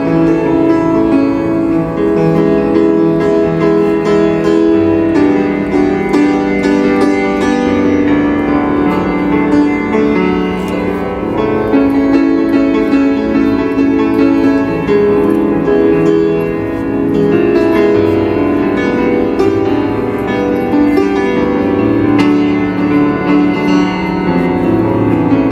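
A grand piano played in a continuous piece of chords and melody, with no pauses.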